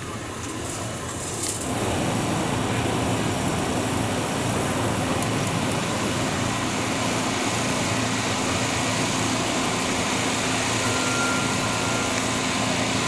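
An engine running steadily, getting louder about a second and a half in and then holding level.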